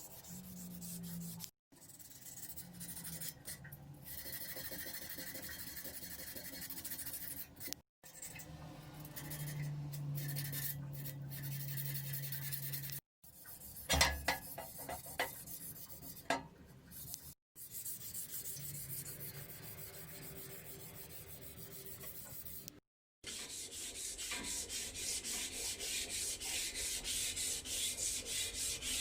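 Sandpaper rubbing back and forth on a metal bicycle frame, broken by a few short silent gaps. Near the end the strokes come quick and even. A couple of sharp knocks come about halfway through.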